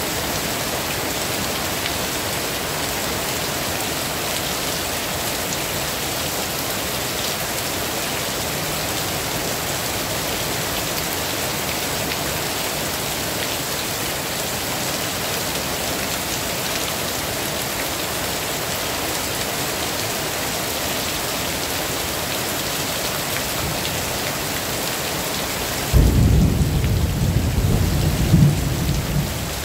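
Heavy rain falling steadily. Near the end a sudden loud rumble of thunder sets in and rolls on for about three seconds.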